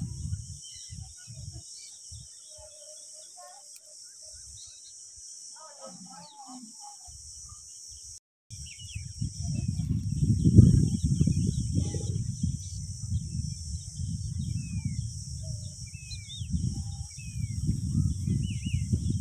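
Outdoor bird and insect ambience: a steady high insect drone with small birds giving short falling chirps. From about seven seconds on, low rumbling buffets hit the microphone, loudest about ten seconds in, with a brief dropout just before they start.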